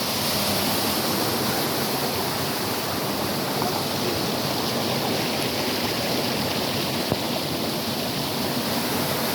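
Spring water running steadily, a stream-like rush of flowing water.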